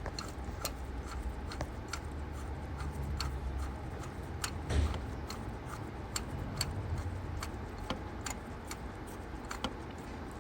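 Socket ratchet clicking as a new spark plug is tightened down into the engine: a scattering of sharp separate ticks, with one duller knock about five seconds in.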